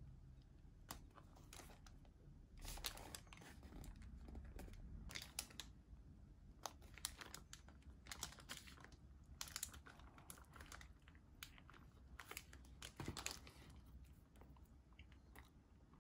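Faint crinkling and rustling of a paper sandwich wrapper being unfolded and pulled off, with the paperboard sandwich box handled in short irregular clicks and scrapes.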